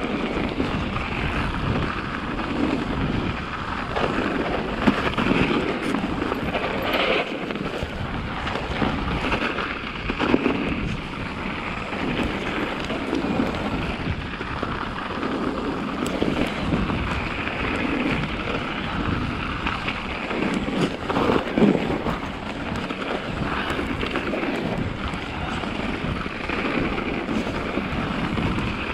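Mountain bike being ridden over a snowy trail: tyres rolling through packed snow and the bike rattling over bumps, with occasional knocks. Wind rushes steadily over the camera's microphone.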